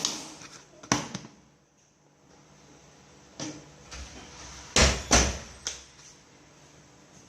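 Kitchen cookware and utensils being handled: a few irregular knocks, with two heavy thumps close together about five seconds in.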